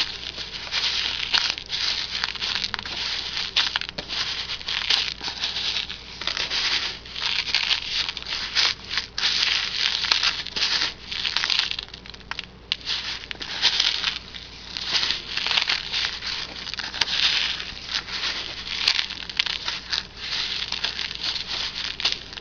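Loose bird seed rustling and crunching in a plastic tub as a lump of lard is rolled and pressed through it by hand, a continuous uneven rustle.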